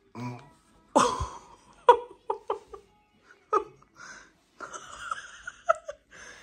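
A baby giggling and vocalizing excitedly: a string of short squeaky bursts, then breathy, panting sounds near the end.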